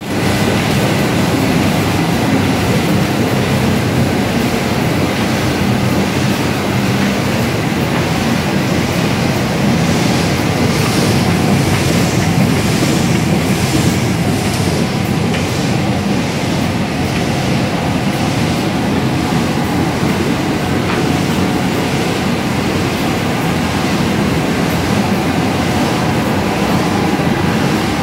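A sheet-fed offset printing press with a UV drip-off coating unit running at production speed. It makes a steady, loud mechanical clatter with a regular swishing beat, about three every two seconds, as the sheets cycle through.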